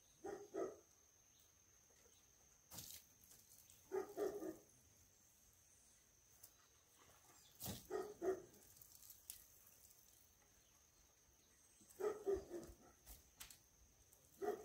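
A dog barking in short bouts of two or three barks, repeating every few seconds, over a steady high insect drone.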